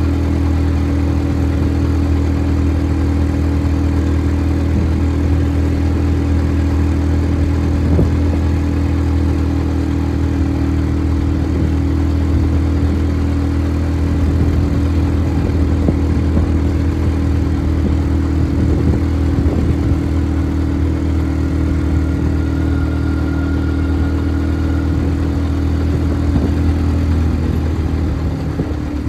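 ATV engine running at a steady pitch, easing off slightly in the last second.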